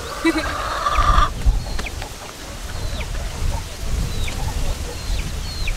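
Chickens clucking, with a loud squawk in the first second or so, then scattered short clucks.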